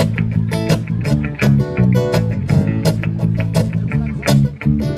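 Live reggae band playing an instrumental passage: guitars and bass over a steady beat, with no singing.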